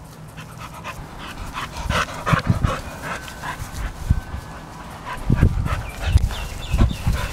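Cattle dog panting with its mouth open, in quick short breaths, with a few dull low thumps in the second half.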